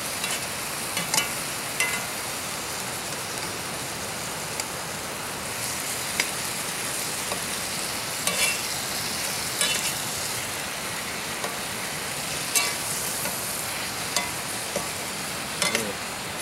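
Onions sizzling in olive oil in a cast-iron skillet on a canister gas stove, with scattered scrapes and clinks of a metal utensil stirring them in the pan.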